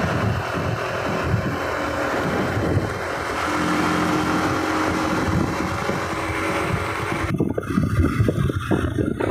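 Wind and road noise recorded from a moving vehicle: a steady rushing hiss over a low rumble. About seven seconds in it cuts abruptly to duller, gusty wind buffeting on the microphone.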